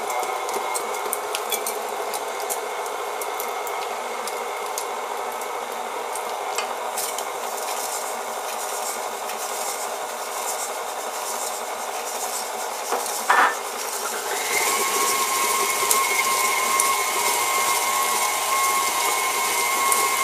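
Electric mixer creaming butter and sugar in a bowl: a steady motor hum with light clicks of the beaters against the bowl. There is a sharp clatter about two-thirds of the way in, and soon after the mixer runs louder with a higher, steadier whine, as if turned up a speed.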